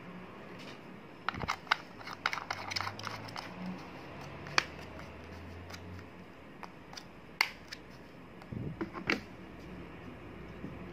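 Light clicks and taps from a metal phone-holder clamp being fitted onto the ball joint of the stand's arm, with a knurled knob turned on the threaded stud. The clicks come in a quick cluster from about one to three and a half seconds in, then singly, with a last few around nine seconds.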